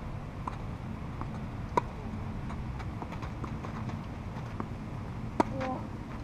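Tennis ball struck by racket during a rally on a clay court: two sharp, loud hits about three and a half seconds apart, with fainter clicks of ball bounces and the far player's strokes between them.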